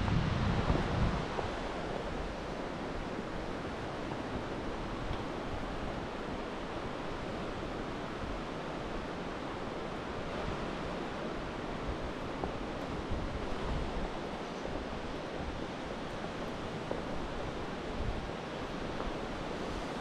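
Steady rush of river water and a waterfall. Wind buffets the microphone briefly at the start.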